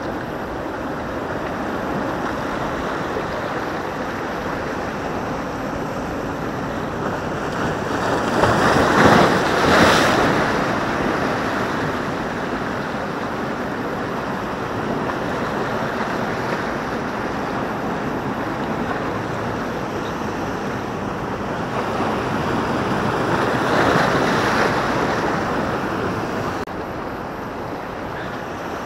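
Sea surf washing against a rocky shoreline in a steady rush, with two louder waves breaking, about nine seconds in and again about twenty-four seconds in.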